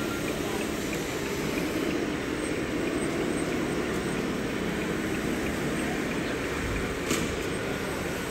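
Steady mechanical running noise of radio-controlled construction models working together, with one sharp click about seven seconds in.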